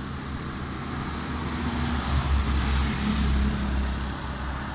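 Heavy diesel truck passing close as it comes downhill, its engine running with a low steady note that grows louder about halfway through as it goes by.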